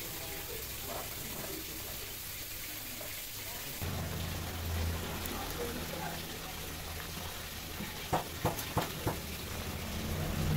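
Hot oil sizzling steadily as vegetable donut batter fries. A low hum comes in about four seconds in, and four short sharp knocks sound near the end.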